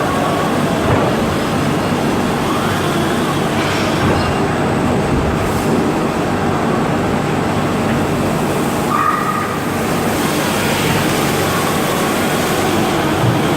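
Teeth-grinding machine running with a loud, steady mechanical noise, with a brief higher squeal about nine seconds in.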